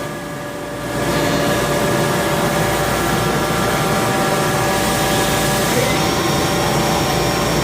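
Haas VF-2SS machining center's spindle running at 2500 rpm: a steady whine of several tones over a broad rush of noise, which gets louder about a second in.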